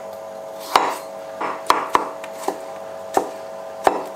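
Chef's knife chopping a fresh cucumber on a cutting board: about seven sharp knocks at an uneven pace.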